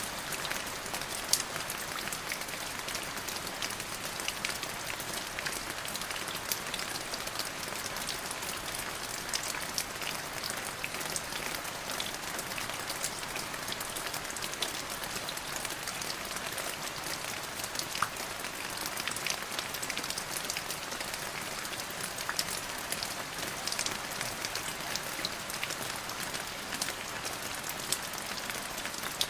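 Steady rain falling on a surface, an even hiss with many sharp drop impacts scattered through it.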